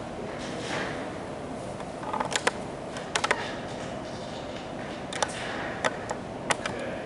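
Sharp clicks of computer keys being pressed to advance presentation slides: a pair, then a quick run of three, then single clicks, over a steady hum of room noise.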